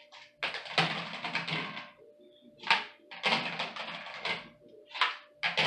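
Plates being set one after another into the bottom rack of a dishwasher: a run of irregular clatters, clinks and scrapes of crockery against the rack, over a faint steady hum.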